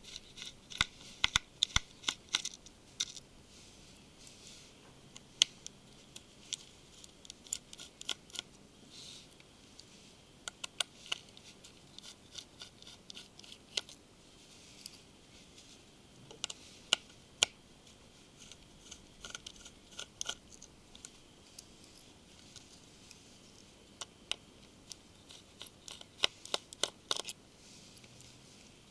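Small Phillips screwdriver undoing the tiny screws around the rear housing of a Samsung Galaxy Note 2: faint, irregular little clicks and scrapes of metal on the screw heads, in short clusters every few seconds.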